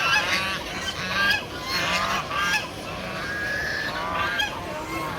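A group of geese honking loudly, many short calls overlapping one after another, the sound of the birds calling for food.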